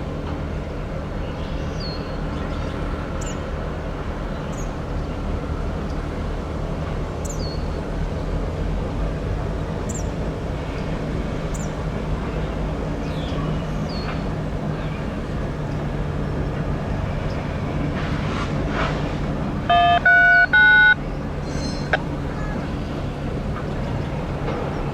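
Diesel locomotive engine running with a steady low drone. About 20 seconds in, a loud multi-note horn sounds in three quick blasts. Birds chirp now and then throughout.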